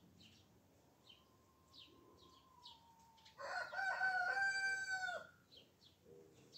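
A rooster crows once, starting about three and a half seconds in and lasting about two seconds: a broken start, then a long held note. Small birds chirp now and then around it.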